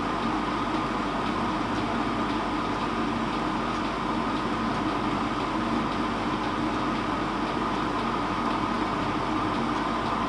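Metal lathe running steadily during profile turning of a connecting rod: an even machine hum with a higher whine over it, unchanged throughout.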